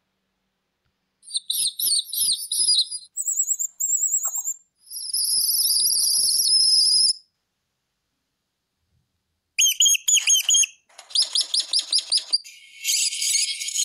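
Recorded bird calls played back from a predator-calling app: three short clips of high-pitched chirping and squealing in a row. After a pause of about two seconds comes a run of rapid, repeated rodent squeaks.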